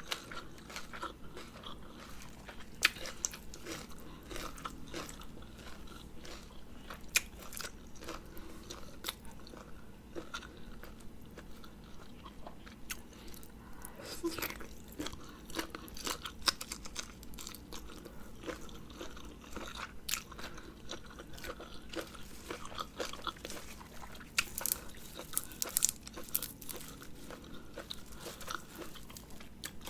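A person chewing and crunching food while eating a spicy Thai noodle salad, with many small, sharp clicks and crunches throughout, busier in the second half.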